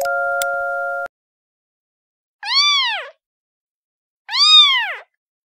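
Kitten meowing twice, about two seconds apart; each meow is high and rises then falls in pitch, and the second is the louder. A steady tone sounds for about the first second, before the meows.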